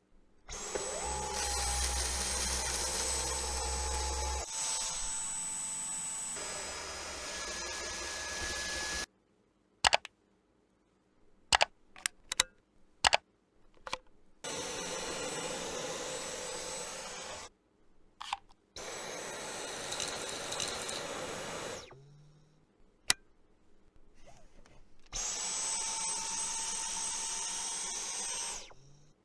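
Cordless stick vacuum motor, a Dyson V11 Outsize, running in several bursts of a few seconds each, each starting and stopping abruptly, with a steady high-pitched whine over the suction noise. Sharp clicks and knocks fall in the gaps between runs.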